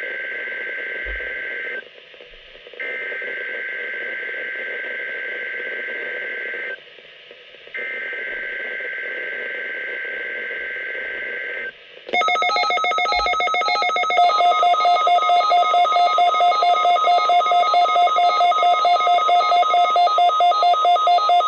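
NOAA Weather Radio SAME digital header bursts, the two-tone data screech of the Required Weekly Test: one burst ends just after the start, then two more follow, each about four seconds long after a one-second gap. About twelve seconds in, a louder electronic alert tone takes over. It starts with rapid pulsing, then settles into a multi-tone beeping that pulses about three times a second.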